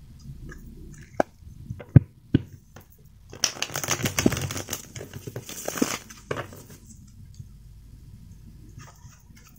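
A tarot deck being riffle-shuffled by hand: a dense, rapid flutter of cards flicking together for about two and a half seconds, starting just past a third of the way in. Before it come a few sharp clicks as the deck is handled, and one more click follows.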